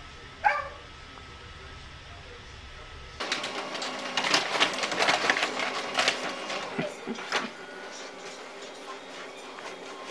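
Office printer running and feeding paper with a rapid mechanical clatter, loudest for the first few seconds after it starts and then quieter, while a cat paws at the paper slot. Before it starts, a low hum and one short falling squeak.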